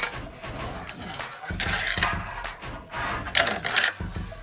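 Fingerboard and plastic obstacle pieces handled on a glass tabletop: clicks, taps and scraping rolls of the small board, louder about one and a half seconds in and again near the end.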